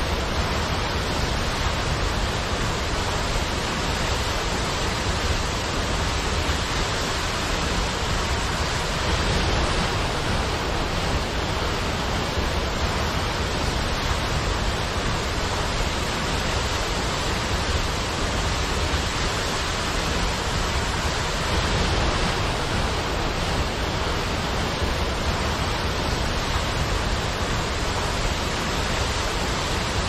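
Waterfall water rushing in one steady, even, fairly loud stream of noise, with a deep low rumble beneath it.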